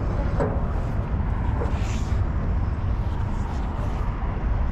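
Steady low rumble of wind buffeting the microphone, with a brief hiss about two seconds in.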